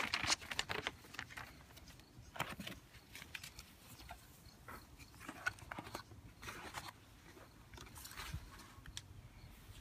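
Hands handling packaging: paper rustling, then a booklet and foam inserts being lifted out of a cardboard-and-plastic box, heard as short, scattered rustles and light knocks.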